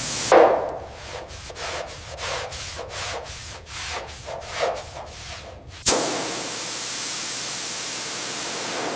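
A sharp swish, then a quick run of rubbing strokes on a surface, about three to four a second. Just before the end, a sudden change to a steady spraying hiss.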